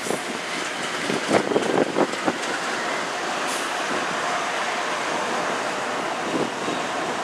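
Three Canadian National GE diesel locomotives running light, passing close below and drawing away: steady engine and wheel noise, with a few sharp knocks in the first couple of seconds.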